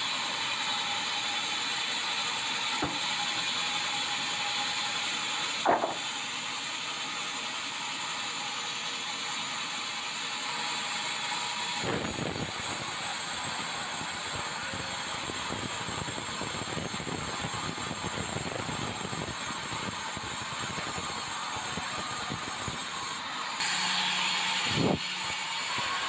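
Band sawmill running, its blade sawing lengthwise through a bengkirai (yellow balau) hardwood log: a steady mechanical whirr and hiss. One sharp knock about six seconds in, and the sound grows louder near the end.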